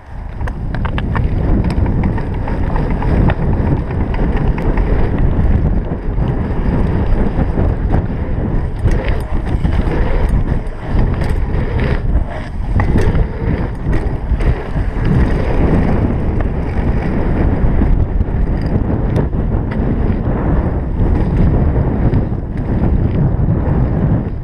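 Wind buffeting an action camera's microphone as a BMX bike is ridden fast over a dirt track, with tyre rumble and frequent clicks and rattles from the bike going over the bumps.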